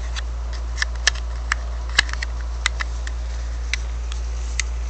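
A series of sharp, separate clicks and light knocks of a detachable blade being handled and snapped onto a cordless hair clipper, over a steady low hum.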